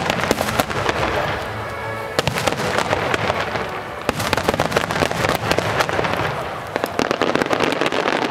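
Aerial firework shells bursting overhead with dense, rapid crackling that comes in several waves, over music.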